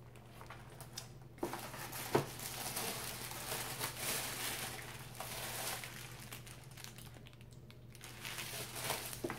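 Packaging crinkling and rustling as a subscription box is opened and unpacked by hand. It starts about a second and a half in, with a sharp click near the start, and eases off toward the end.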